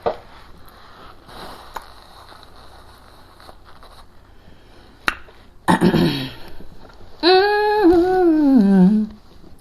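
Faint mouth and eating sounds, then a woman's long hummed "mmm" of enjoyment while eating, wavering and falling in pitch at the end.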